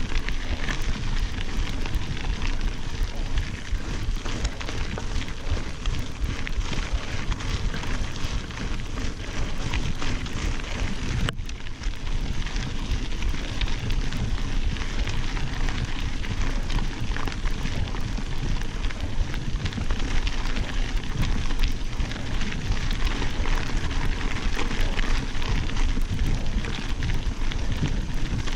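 Mountain bike rolling along a dirt and gravel road: a steady crackling rush of tyre noise mixed with wind noise on the camera's microphone.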